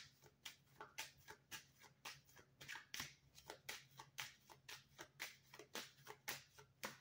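A deck of oracle cards being shuffled by hand: faint, quick card-on-card flicks, about four a second.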